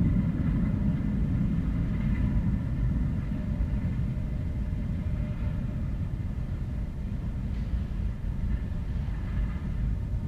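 Steady low rumble of a metro train running, easing off slightly in loudness.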